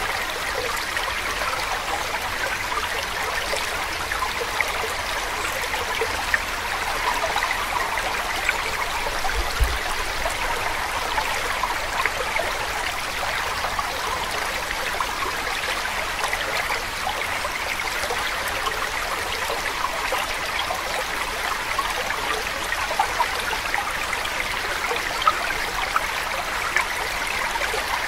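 Steady running water, a continuous trickling stream.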